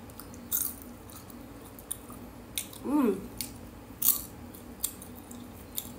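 Mouth-close chewing of caramel-topped popcorn: a string of short crisp crunches at irregular intervals, with a brief hummed voice sound falling in pitch about halfway through.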